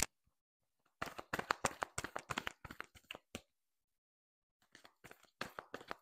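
A deck of tarot cards being shuffled by hand: a sharp click at the start, then a quick run of card flicks and slaps for about two seconds, a pause, and more shuffling near the end.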